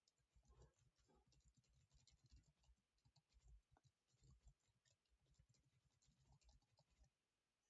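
Faint computer keyboard typing: many irregular quick key clicks, stopping shortly before the end.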